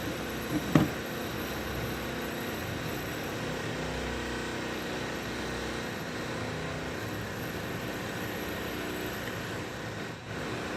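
Steady mechanical background hum, with one sharp click or knock under a second in.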